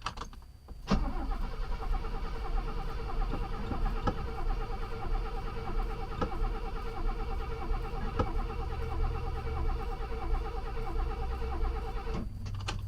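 Mercedes 250S straight-six being cranked on the starter motor for about eleven seconds with an even, rhythmic cadence but never catching. It starts about a second in and cuts off sharply near the end. The owner puts the failure to start down to the engine being flooded with fuel.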